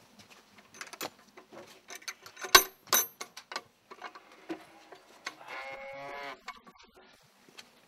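Metal latch rattling and knocking against an old wooden door, with two sharper knocks about two and a half and three seconds in, then the door creaking on its hinges for about a second as it swings open.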